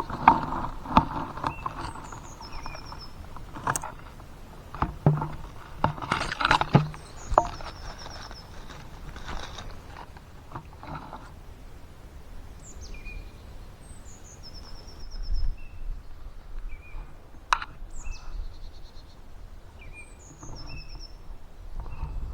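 Songbirds singing in the woods: repeated short, high chirps and quick trills through the whole stretch. During the first seven seconds or so they come with scattered crunches and snaps of footsteps and handling in forest-floor leaf litter.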